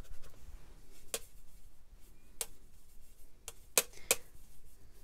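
Watercolour brush mixing paint on a metal palette tin, its ferrule and handle clicking against the tin five times over faint scrubbing of the bristles; the fourth click is the loudest.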